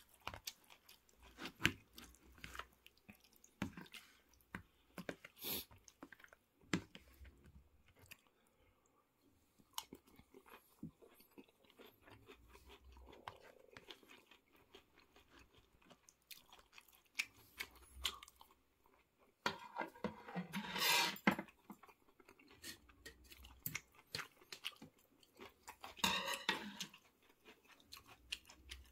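Chewing and crunching while eating breaded pork cutlet with curry rice, with many short scattered clicks and two louder stretches, about twenty and twenty-six seconds in.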